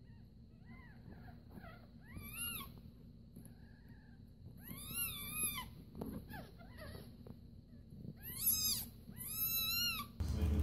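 Newborn kittens mewing while nursing: a string of high-pitched mews, with a longer drawn-out one about five seconds in and two louder ones near the end.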